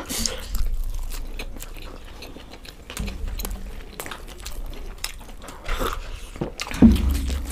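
Close-up chewing and biting noises of people eating stuffed radish paratha with potato-fenugreek sabzi: wet mouth clicks and small crunches, with a louder burst near the end.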